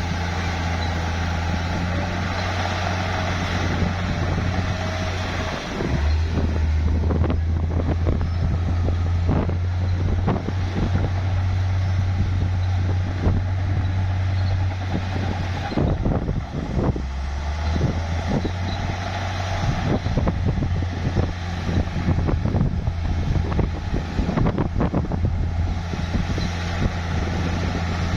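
Heavy bulldozer's diesel engine running steadily under load, its note dropping and growing heavier about six seconds in. From then on, irregular clanking and knocking runs with it, from the tracks and the pushed rock and dirt.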